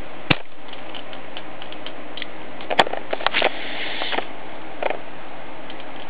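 Hand shears clicking and crunching as they bite through quarter-inch annealed copper tubing: one sharp click, then a cluster of clicks and crunches in the middle, over a steady hiss.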